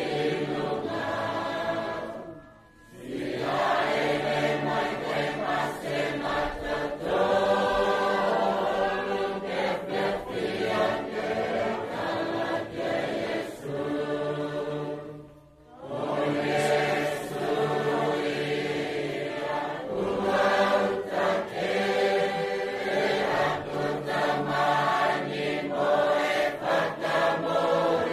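A choir singing a hymn in Niuean in long held lines. It breaks off briefly twice, a couple of seconds in and about halfway through.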